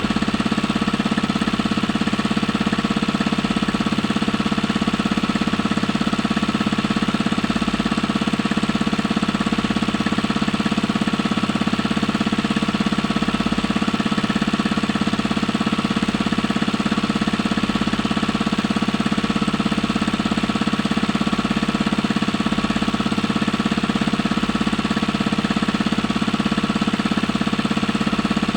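Small engine running steadily at one constant speed, with a rapid knocking beat.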